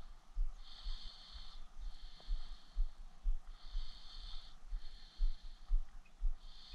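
Quiet outdoor ambience: a high buzzing call that repeats in pairs of short bursts about every three seconds, over irregular low rumbling on the microphone.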